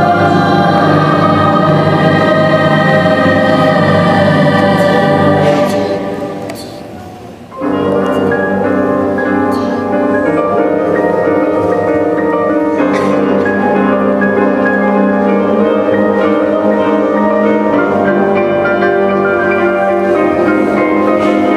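Large choir of adult and children's voices with a chamber orchestra, singing sustained chords of a choral cantata in a reverberant church. About six seconds in the music dies away, then comes back in abruptly at full level with steady held chords.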